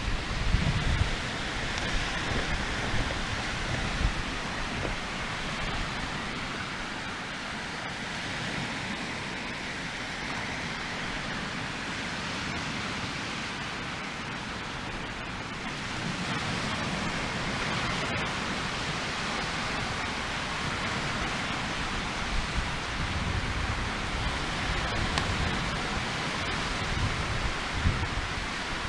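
Swedish-torch log fire burning in the wind: a steady rushing noise, with gusts of wind buffeting the microphone near the start and again in the second half, and a few faint clicks.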